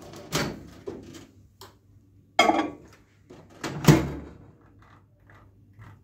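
Clunks of a glass bowl being handled and a Panasonic convection microwave oven's door being shut, the loudest and deepest clunk about four seconds in, followed by a few faint ticks.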